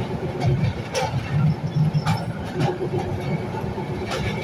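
Narrow-gauge Kangra Valley toy train running on the track: a steady low rumble with irregular sharp clacks of the wheels over rail joints.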